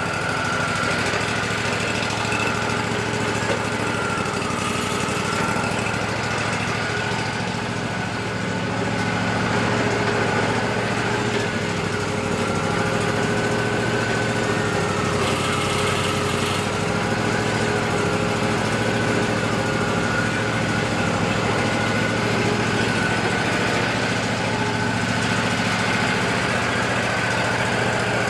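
Wood-Mizer LT40 band sawmill running steadily, its engine droning under a high whine that wavers slowly up and down in pitch.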